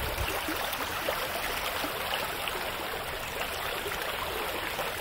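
Small creek's water running steadily.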